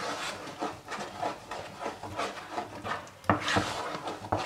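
Wooden spoon stirring thick cornmeal porridge in a non-stick pan, scraping through the porridge and along the pan about twice a second. One sharper knock about three seconds in.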